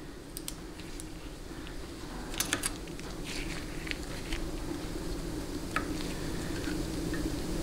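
Light metal clicks and taps of pliers and a small metal part being handled, a few scattered ticks with a quick cluster about two and a half seconds in, over a steady low hum.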